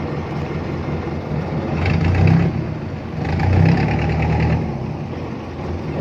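Boat engine running with a low steady beat, swelling twice, about two seconds in and again about three and a half seconds in.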